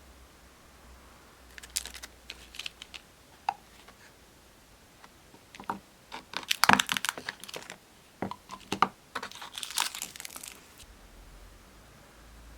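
Hand-handled packaging and small objects: crinkling and rustling mixed with sharp clicks and taps, in scattered bursts that are busiest about six to seven seconds in.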